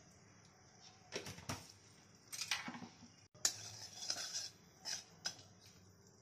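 Metal spatula scraping and tapping against a metal kadai while stirring a little oil and whole spices: a run of short scrapes and knocks, the sharpest about halfway through.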